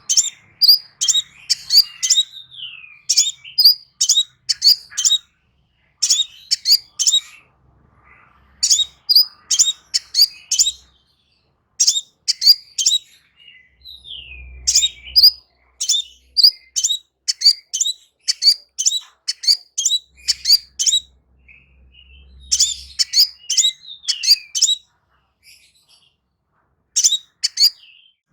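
Crimson sunbird singing: quick runs of three to six sharp, very high chips, separated by short pauses, with a few lower sliding whistled notes mixed in.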